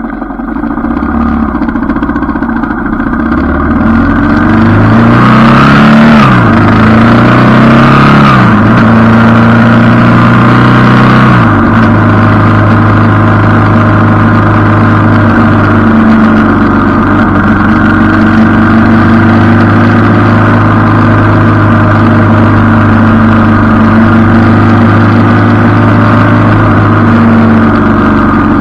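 Motorcycle engine pulling away from a stop and accelerating through the gears, its pitch climbing and dropping back at each upshift, about every two to three seconds. About halfway in it settles into a steady cruise, with wind rushing over the handlebar-mounted microphone.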